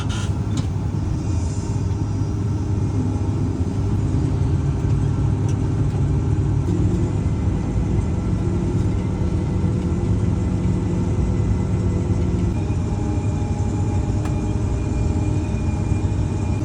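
A vehicle engine running steadily with a low rumble and no change in speed.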